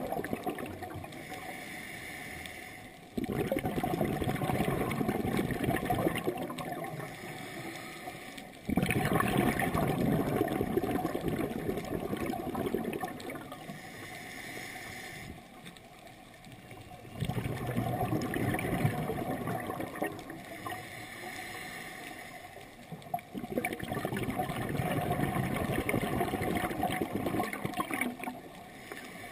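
Scuba regulator breathing heard underwater: bursts of bubbling exhaust noise that start suddenly with each exhalation and fade over a few seconds, repeating every five to eight seconds, with quieter gaps for the inhalations between.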